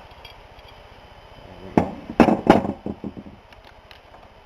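A quick cluster of about five sharp metal clicks and taps, starting about a second and a half in: a tool and small steel valve parts knocking against the Ford AOD transmission's valve body as a spring is worked out with a magnet.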